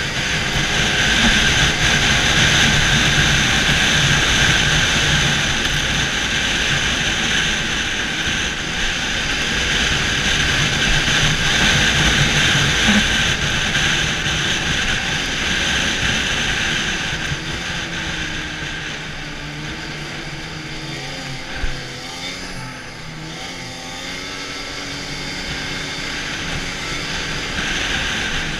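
Arctic Cat snowmobile running steadily at trail speed, its engine and track loud throughout. About two thirds of the way through it eases off a little and the engine's pitch wavers lower, with a single brief thump.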